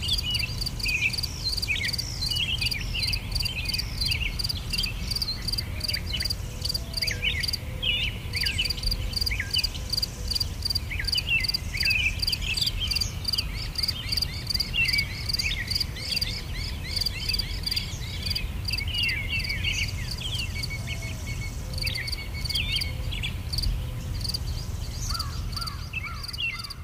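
Nature ambience of insects chirring in a rapid, even pulse, with many short bird calls over it and a low rumble underneath.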